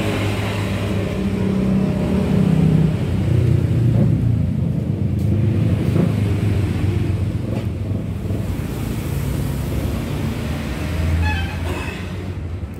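Low engine rumble of road traffic, swelling a few seconds in and again near the end.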